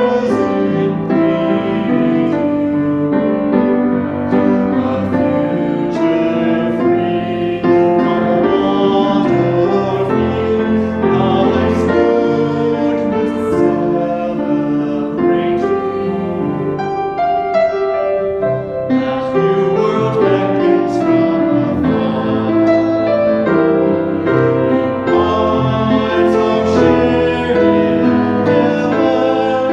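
Singing with piano accompaniment, sustained melodic lines over steady chords.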